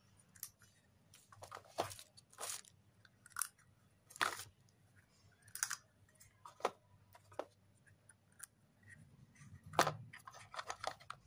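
Battery LED tea lights being handled in bubble-wrap packaging: scattered plastic crinkles and light clicks as the candles are picked up and switched on one by one.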